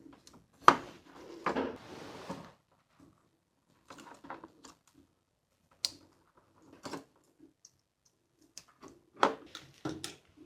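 Irregular clicks and knocks of small hard objects being handled, with a sharp knock about a second in, a short scraping rustle just after it, and another loud cluster of clicks near the end.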